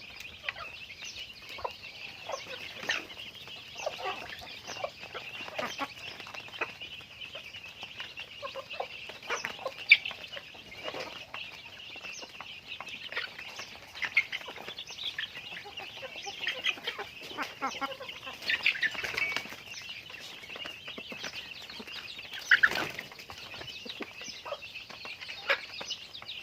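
A flock of chickens clucking, with many short calls overlapping over a steady high chatter. There is one sharp click about ten seconds in and a louder call a little past twenty-two seconds.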